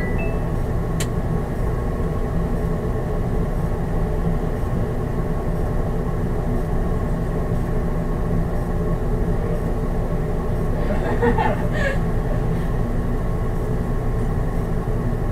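City bus engine idling with a steady hum, heard from the driver's cab while the bus stands at the stop. There is a click about a second in and a brief louder noise around eleven seconds in.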